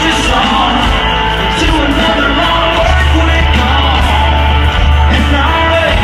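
Live country-rock band playing loud through a concert PA, heard from the crowd, with drums and electric guitar; a heavy bass comes in strongly about three seconds in.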